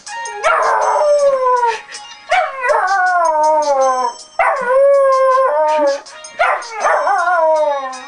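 Rottweiler puppy howling at a ringing phone alarm: four long howls, each sliding down in pitch with a waver, over the alarm's steady ringtone.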